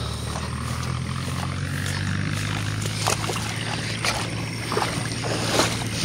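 A steady low mechanical hum, with a few short sharp clicks in the second half.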